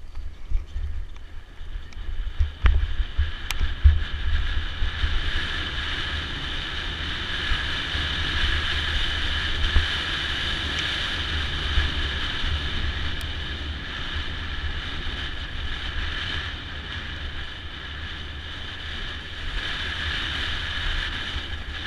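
Mountain bike riding down a dirt forest trail: wind buffeting the camera microphone with rumbling ride noise, sharp knocks over bumps in the first few seconds, then a steady high buzz.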